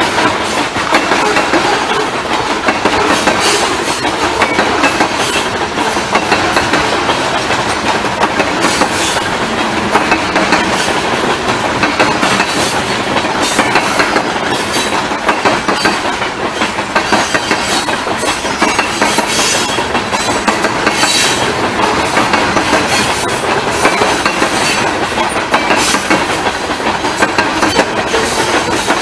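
Covered hopper cars of a long freight train rolling past: a steady rumble of steel wheels on rail with repeated clicks and clanks as the wheels run over the rail joints.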